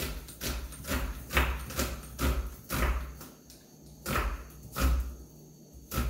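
Kitchen knife chopping an onion on a wooden cutting board: about ten sharp knocks, one every half second or so, with a pause a little before the middle.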